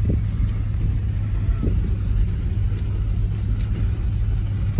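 Vehicle engine and cabin rumble heard from inside the cab: a steady low rumble.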